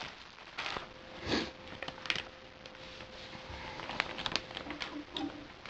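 Packaging crinkling and rustling as a new laptop LCD panel is unwrapped by hand, in short irregular bursts with a few sharp clicks. A faint steady hum runs underneath from about a second in.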